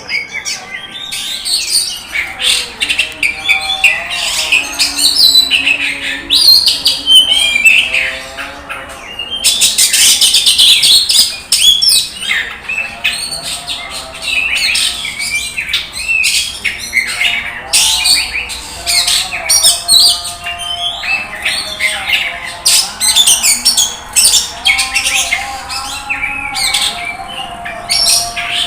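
Oriental magpie-robin (kacer) singing a loud, rapid, varied song of quick whistled and sharp notes, almost without pause, dipping briefly about nine seconds in.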